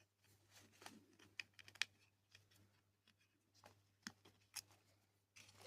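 Faint, scattered small clicks and taps of small screws and plastic robot parts being handled while a screw is worked into a control board with a small screwdriver.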